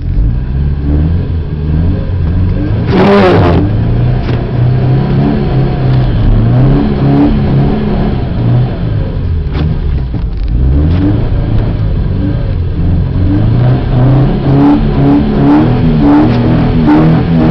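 Car engine revving hard, its pitch rising and falling again and again as the car spins fast donuts in snow. A brief loud burst comes about three seconds in.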